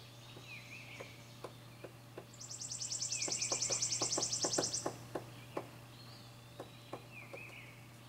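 Hairy woodpecker pecking at a wooden board to dig out carpenter bee larvae: irregular sharp taps on the wood, coming faster for a few seconds in the middle. Over the taps another bird gives a rapid, high, dry trill lasting about two and a half seconds, with other birds chirping faintly behind.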